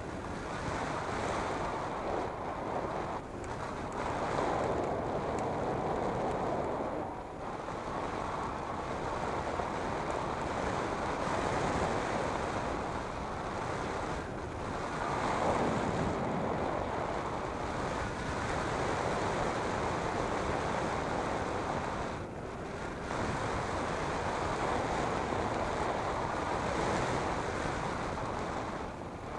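Airflow rushing over the microphone of a hang glider in soaring flight: a steady rush of wind noise that swells and eases every few seconds, with a few brief dips.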